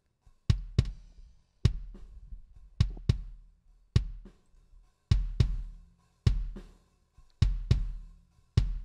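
Recorded kick drum track played back: about a dozen deep, punchy hits in an uneven groove. The kick runs through an EQ that cuts some low mids and boosts around 8 kHz, and a Waves TransX transient shaper for extra punch.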